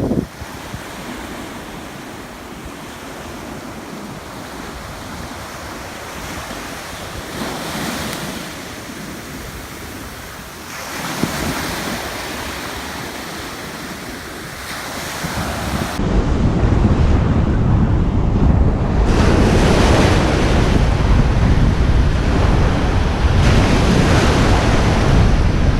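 Ocean surf washing onto a beach, with waves swelling and breaking every few seconds. About two-thirds of the way through, heavy wind rumble on the microphone comes in suddenly and becomes the loudest sound.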